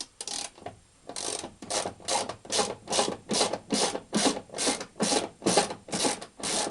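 Ratchet wrench worked back and forth to run off a suspension nut, a rattling click on each return stroke, about two or three strokes a second.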